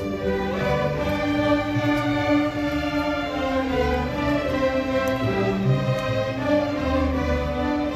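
School orchestra playing a slow passage of long, held chords, with bowed strings prominent.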